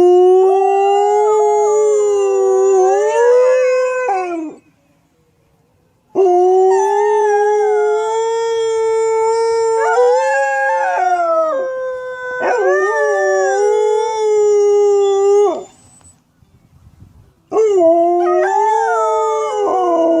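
A dog howling: four long, drawn-out howls of about three to five seconds each. Each is held at a fairly steady pitch that wavers, then slides down as it ends. Short pauses separate them, and the last runs past the end.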